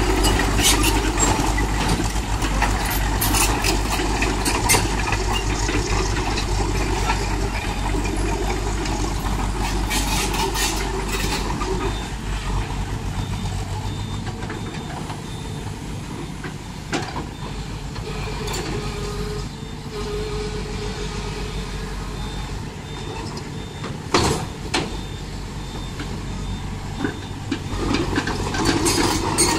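Komatsu PC60 hydraulic excavator's diesel engine running steadily, louder for the first dozen seconds and then quieter. A few sharp knocks, the loudest about 24 seconds in.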